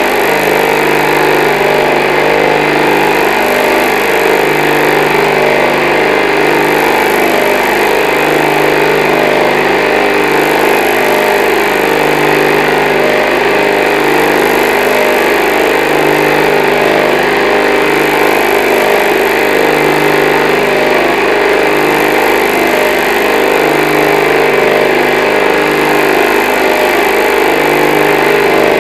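Experimental pulsed electromagnet motor running steadily: a loud mechanical hum and whir with several steady tones, and a low hum that swells and fades every few seconds. Its 20-pound rotor carries eight large coils and is not perfectly balanced.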